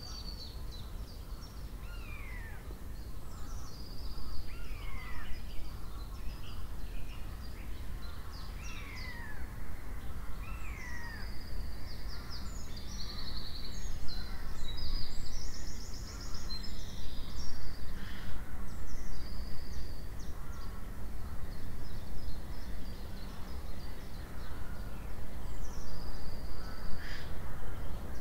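Woodland birdsong: one bird repeats a short down-slurred whistle about every two seconds in the first half, while others add high chirps and brief trills, over a steady low rumble.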